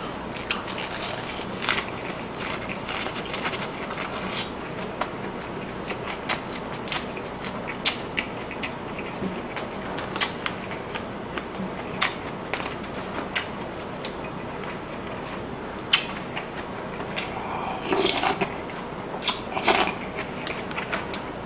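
Close-miked eating sounds: a mouthful of lettuce-wrapped pork belly being chewed, with many short wet clicks and crunches. Near the end come two louder slurps from a spoon.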